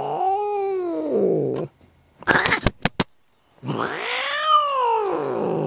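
A black-and-white domestic cat yowling: two long, drawn-out yowls that rise and fall in pitch, with a few sharp clicks in the short gap between them. It is a protest cry from a cat being pulled out from hiding under a chair.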